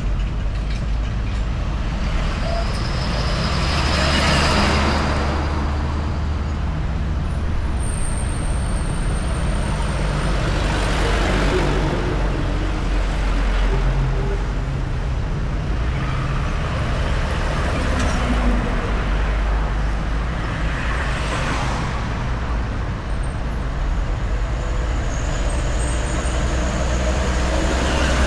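Steady road traffic: a constant low engine and tyre rumble, with individual vehicles swelling up and fading as they pass, about four times.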